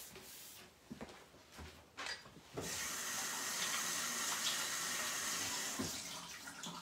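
A kitchen faucet turned on about two and a half seconds in, after a light knock, and water running steadily into the sink for hand washing, easing off near the end.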